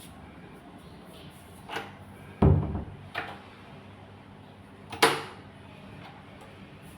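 Irregular knocks and thuds from woodwork being handled or struck, four in all: a light knock, a heavy low thud about two and a half seconds in, another knock, and a sharp loud one about five seconds in, over a steady low hum.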